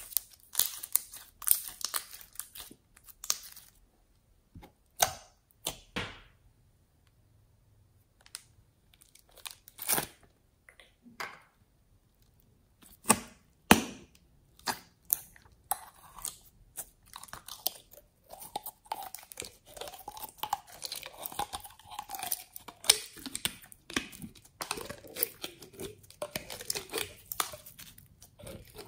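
Hands squeezing and pressing slime in a plastic box: scattered sticky squelches, sharp clicks and pops with short pauses between. Over the second half clear slime packed with beads is worked into it, and the sound becomes a denser, almost continuous crackle.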